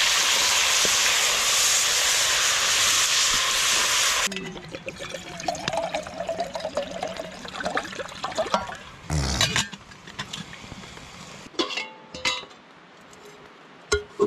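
Bacon sizzling loudly in a pot over a campfire for about four seconds, cutting off abruptly. Then water is poured from a thermos into a steel pot, followed by a few metallic clanks near the end.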